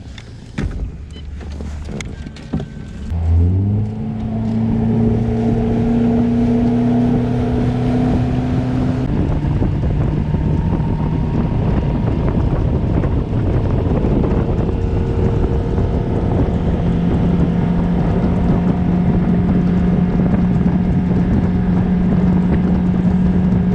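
Bass boat's outboard motor throttled up from idle about three seconds in, its pitch gliding up, then running steadily at speed with wind and rushing water. The engine note steps higher again around ten and sixteen seconds in. A few light clicks and knocks come before the throttle-up.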